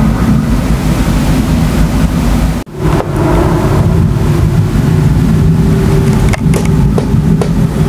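Continuous low rumbling thunder from an approaching supercell thunderstorm. It breaks off for a moment about two and a half seconds in, and a steady hum and a few sharp clicks come in under the rumble afterwards.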